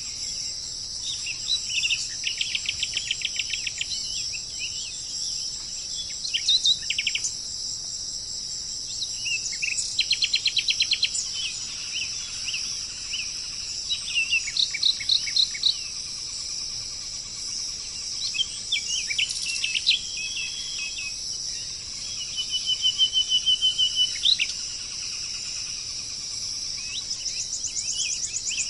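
Songbird singing in short phrases of rapid trills and chirps, repeating every few seconds, over a steady high-pitched insect buzz like crickets.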